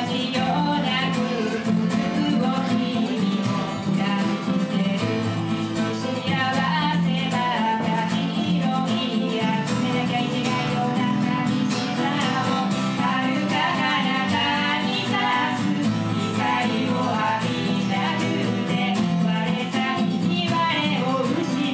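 Live acoustic duo: two acoustic guitars strumming chords under a woman's singing voice.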